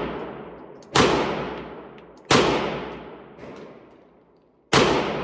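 Three pistol shots, about a second, two and a half seconds, and nearly five seconds in, each a sharp crack followed by a long echo fading in the indoor range.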